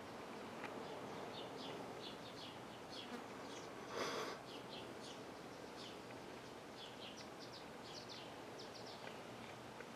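Garden ambience: small birds chirping in short clusters of high notes throughout. About four seconds in, an insect buzzes briefly and loudly past the microphone.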